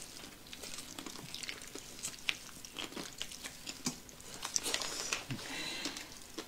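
Faint crackling and small clicks of a plastic food bag being squeezed as sour-spicy pickling soup dribbles out of it onto a plate of cucumbers.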